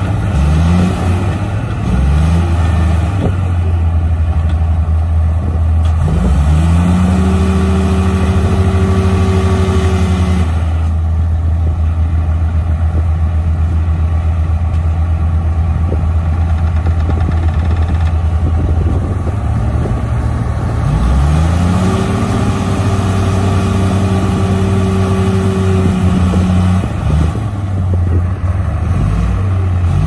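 Bulldozer diesel engines working hard, revving up to full power for several seconds twice, about 7 s and about 21 s in, and dropping back to a lower steady run in between, as the machines strain to free a dozer stuck in mud.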